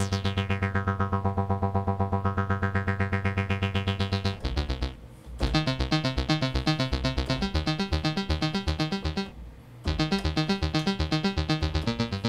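Kurzweil PC3 synthesizer playing a low pulse-wave patch under pulse-width modulation. A held note pulses rapidly while its tone sweeps down and back up. From about five seconds in, a run of changing notes follows, with a brief break near the end.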